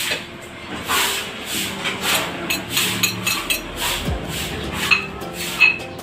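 Wooden spatula scraping and tossing stir-fried cabbage and vegetables in a wok, a run of irregular scrapes and knocks, with two short sharp clinks near the end.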